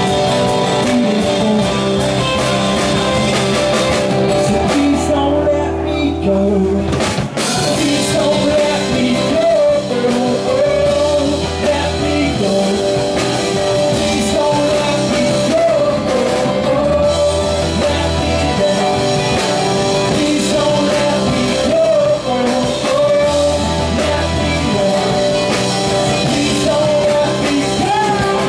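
Live rock band playing: a male singer over acoustic guitar, electric guitars and drum kit. The drums thin out briefly about five seconds in, and the full band comes back in with a hit about seven seconds in.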